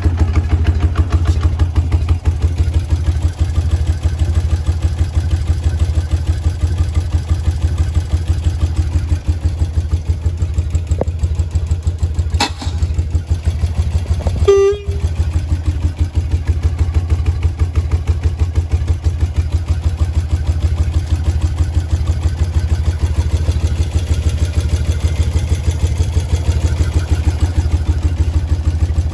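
1971 BMW R75/5's air-cooled flat-twin engine idling steadily, with a short horn beep about halfway through.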